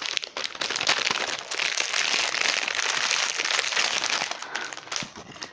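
Clear plastic wrapper crinkling and crackling as it is handled and pulled off a boxed pencil case, dying away near the end.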